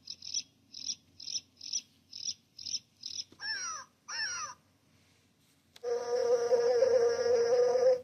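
Animal sound effects played one after another: a run of quick high chirps, about two or three a second, then two falling bird-like whistles. Near the end comes a steady buzz of an insect, the loudest sound, held for about two seconds.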